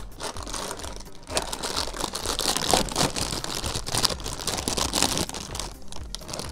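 Crinkly plastic cracker bag being opened and handled, a dense run of crackling and rustling from about a second in that fades near the end.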